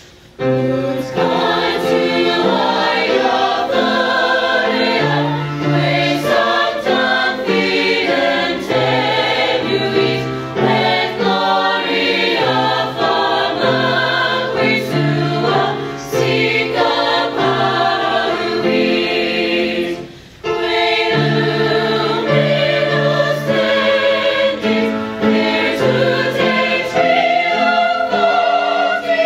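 Mixed-voice student choir, young men and women singing in parts under a conductor. The singing starts about half a second in and breaks off briefly about two-thirds of the way through before going on.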